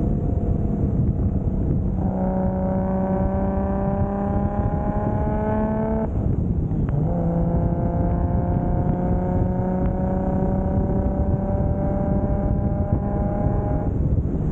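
Toyota Soarer's single-turbo 2JZ inline-six under light acceleration, its pitch climbing slowly, then a brief lift for a gearshift about six seconds in and another slow climb at lower revs before easing off near the end. Steady road and wind noise runs underneath.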